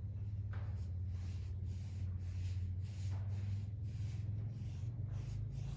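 Short scratchy strokes repeating about two to three times a second as rust inhibitor is worked onto the excavator's rusty steel near the tracks, over a steady low hum.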